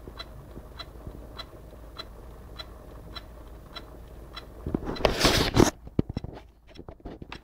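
Asus G73Jh laptop making its strange random noise: a short chirping click repeating steadily about every 0.6 seconds, which the owner ties to its blue-screen crashes. About five seconds in there is a loud crackling burst lasting about a second, then a few scattered clicks.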